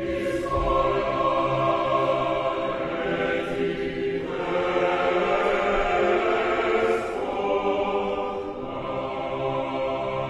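Mixed choir singing Orthodox liturgical chant a cappella. It enters suddenly and holds long chords in phrases that break briefly about four and eight seconds in.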